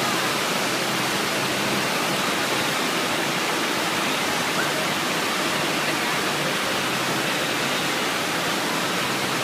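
Steady rushing of the thin sheet of water pumped up the slope of a surf-wave simulator, an even, unbroken hiss.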